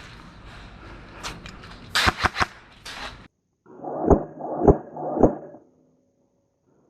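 Airsoft guns firing. A few sharp shots over a rustling background, then, after a brief break, three duller, muffled shots about half a second apart.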